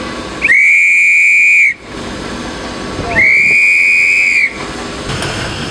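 Railway whistle sounding the departure signal: two long, steady, high-pitched blasts of a little over a second each, about a second and a half apart.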